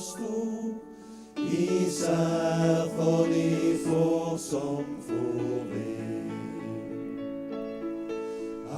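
Male vocal group singing a gospel hymn in harmony. The voices drop briefly early on, come back in about a second and a half in, and close on held chords.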